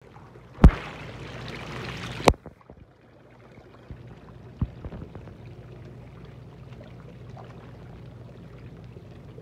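Hot tub water churning and bubbling from the jets, over a steady low hum. Two sharp knocks come about half a second and two seconds in, with louder rushing water between them.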